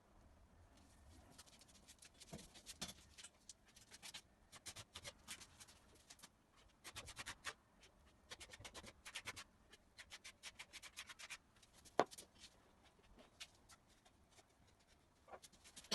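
Faint quick scratching and rubbing strokes by hand, coming in short bursts, with a single sharp knock about twelve seconds in.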